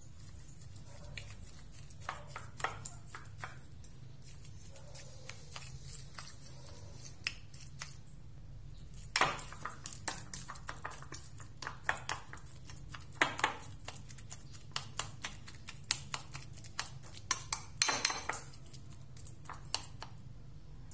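Metal spoon clinking and scraping against a ceramic bowl while mixing seasoned minced meat, in irregular taps that are sparse at first and come thick and fast from about nine seconds in.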